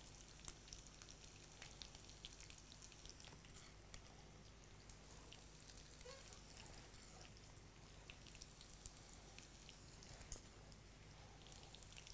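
Near silence: faint room tone with a steady low hum and scattered faint ticks.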